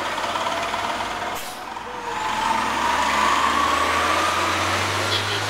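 Light-rail trolley car moving past, its electric drive giving a whine that slowly rises in pitch as it picks up speed, over street traffic noise; a short hiss comes about a second and a half in.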